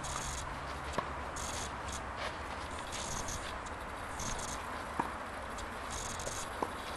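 Tennis balls struck by rackets, heard as three sharp pops: about a second in, around five seconds in, and near the end. Under them runs a steady outdoor hiss.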